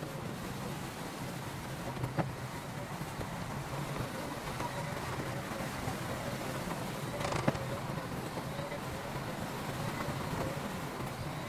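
Diesel engine of a heavy earthmoving machine running steadily, with a few sharp knocks or clanks, the loudest about seven seconds in.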